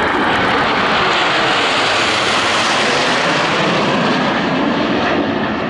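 Formation of Canadian Forces Snowbirds CT-114 Tutor jets passing overhead, each with a single turbojet. It is a steady jet-engine rush whose hiss grows brighter toward the middle and fades after about four seconds.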